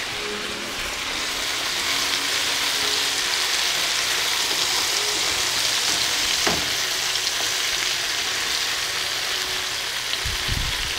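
Sliced zucchini sizzling in oil in a frying pan, a steady hiss, while a wooden spoon stirs the slices. A sharp click about six and a half seconds in and a low thump near the end.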